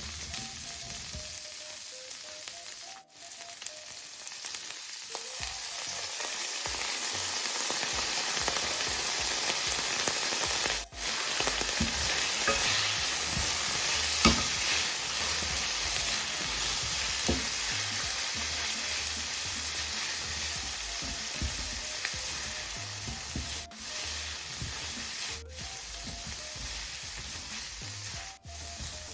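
Asparagus sizzling in a hot pan with coconut oil and a splash of white vinegar added to steam it, a steady hiss with a few sharp clicks. The sound briefly cuts out a few times.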